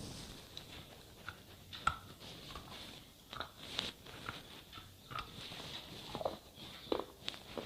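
Slate pencil being bitten and chewed close to the microphone: a run of irregular, sharp crunches and clicks, the sharpest about two seconds in and again near the end.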